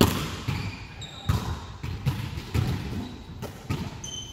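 Volleyball being played on a hardwood gym court: several sharp slaps of hands and arms on the ball, about a second or so apart, the loudest right at the start, with a few short high squeaks.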